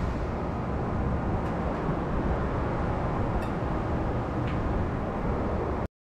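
Steady low rumbling background noise with a faint click or two, cutting off suddenly near the end.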